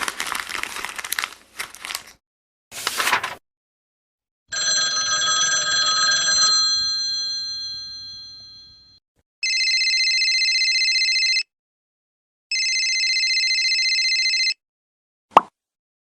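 A string of separate sound effects. A crackling noise and a short burst come first, then a long ringing tone that fades away. Then an old-style telephone bell rings twice, each ring a trilling burst of about two seconds, and there is a short click near the end.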